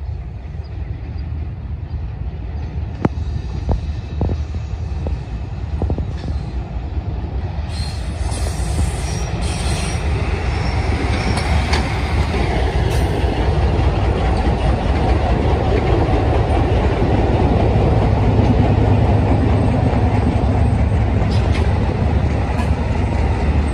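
Pakistan Railways diesel-electric locomotive and its passenger coaches passing close by: a steady low engine rumble with a few sharp clicks early on, then the noise of the wheels on the rails swelling and growing louder as the locomotive and coaches go past.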